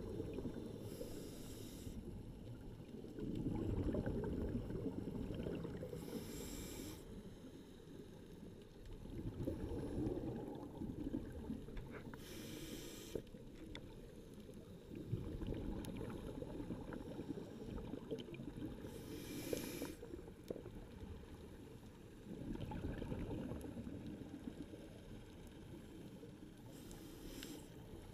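Scuba diver breathing through a regulator underwater: a short hiss on each inhalation, then a few seconds of rumbling exhaled bubbles, repeating about every six to seven seconds.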